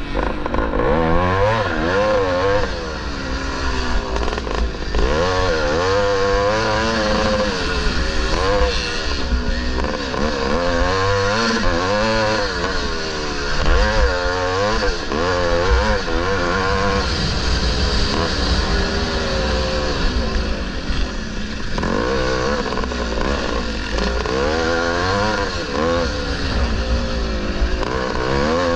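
A 1974 Maico 440's two-stroke single-cylinder engine racing on a motocross track, heard close onboard. Its revs rise and fall over and over as the throttle is worked through the turns and straights.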